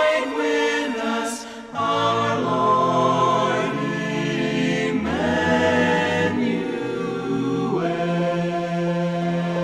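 Choral music: a choir holds sustained chords without clear words, with a low bass line entering about two seconds in and the harmony shifting around the middle and again near the end.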